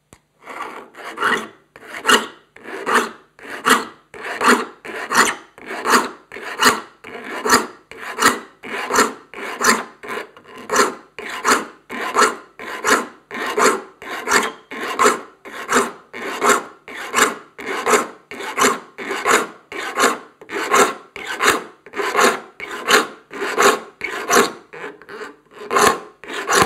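Hand saw file rasping across the teeth of a 7-point crosscut handsaw held in a saw vise, sharpening it one gullet at a time. Firm, even forward strokes, a little more than one a second, each a short rasp followed by a brief pause as the file is lifted back.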